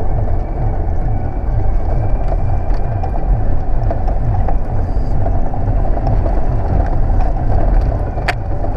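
Toyota LandCruiser four-wheel drive running over a rough track, its engine giving a steady low rumble, with scattered small knocks and rattles and one sharper knock near the end.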